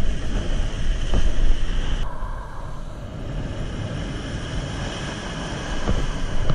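Wind buffeting the microphone in a steady low rumble over waves breaking and washing up the beach.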